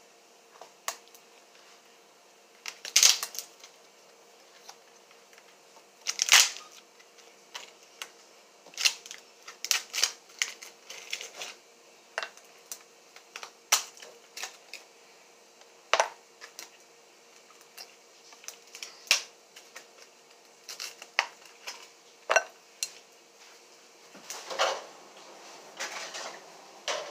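Irregular clicks, cracks and knocks of ice cubes being worked out of a plastic ice cube tray, with louder knocks about three and six seconds in.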